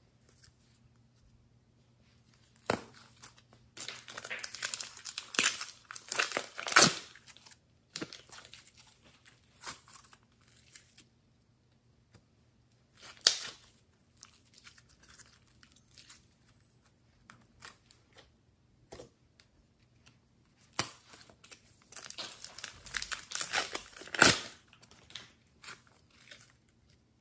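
Slime and soft clay squeezed from plastic piping bags and stretched and kneaded by hand, in spells of dense sticky crackling and crinkling. The longest spells are about four to seven seconds in and again from about twenty-one seconds, with a short one near thirteen seconds.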